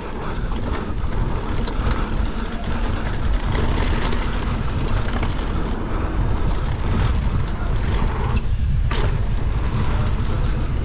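Mountain bike riding down a dirt trail: a steady rush of wind on the camera microphone mixed with tyre noise on dirt, with scattered clicks and knocks from the bike over bumps.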